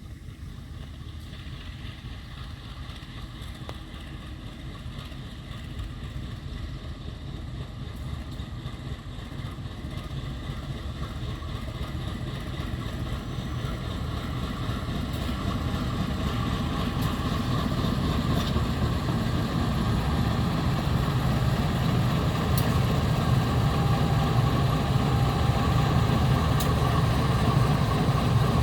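Diesel locomotive approaching, its low engine rumble growing steadily louder.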